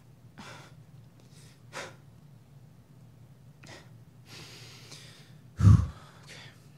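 A man breathing and sniffing heavily during a choked-up pause at the microphone, with one loud, sharp sniff or breath burst close to the microphone near the end.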